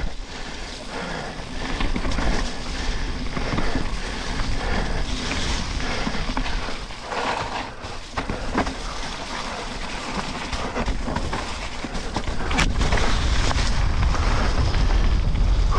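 Downhill mountain bike descending a wet trail: wind rushing over the action camera's microphone and the bike rattling over rough ground, with a sharp knock about three-quarters of the way through and the wind rumble getting louder after it.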